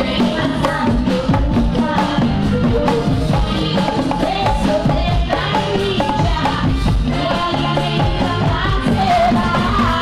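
Latin pop music with a steady drum and percussion beat.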